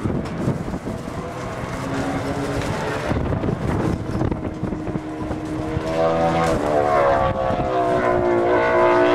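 MotoCzysz C1 prototype superbike's engine at speed, approaching and growing louder, its pitch climbing and dropping as it revs. Wind noise on the microphone is heard in the first seconds.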